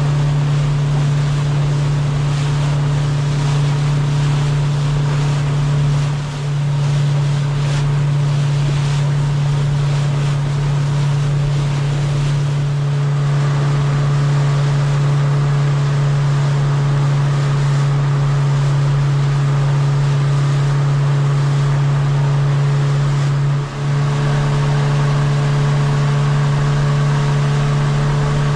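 Sailboat's outboard motor running at a steady cruising speed, a constant low hum, with water rushing past the hull and wake. The hum dips briefly twice.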